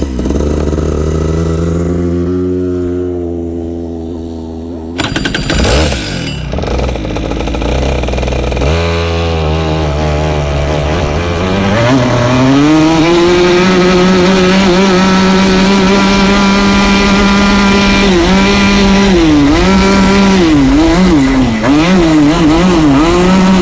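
125cc two-stroke kart engine idling, with a short burst of revs about five seconds in, then pulling away with a rising note and holding high revs. Near the end the revs dip and recover several times.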